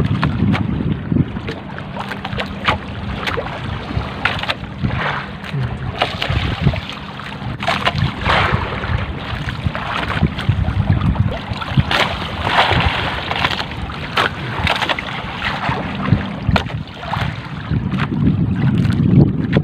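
Wind buffeting the microphone and choppy seawater splashing against the hull of a small outrigger fishing boat under way, in irregular gusts and slaps, over a steady low hum that drops out near the end.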